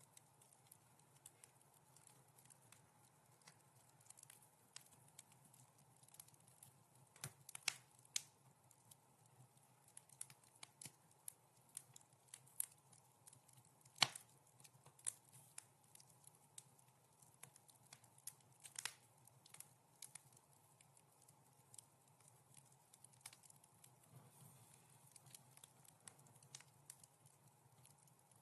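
Wood fire crackling in a fireplace: scattered sharp pops and snaps at irregular intervals over a faint steady background, with the loudest pop about halfway through.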